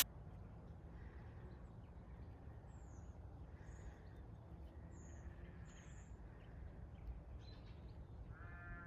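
Quiet outdoor ambience: a small bird gives a few short, high, falling chirps every second or so over a low steady background rumble.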